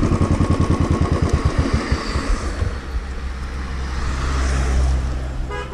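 Royal Enfield Bullet 350's single-cylinder engine idling with an even thump, about ten beats a second. The beat fades out about two seconds in, leaving a steady low rumble.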